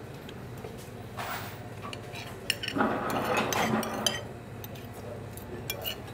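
Spoons and forks clinking and scraping against ceramic plates as people eat, in many short scattered clicks, with a louder noisy stretch in the middle over a steady low hum.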